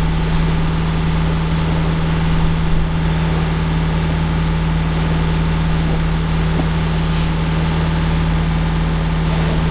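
Gulfstar 41 sailboat's inboard engine running steadily, a constant drone with a low rumble under it.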